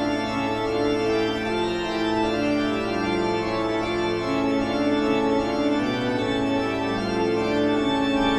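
Slow organ music with long held chords that shift every second or two.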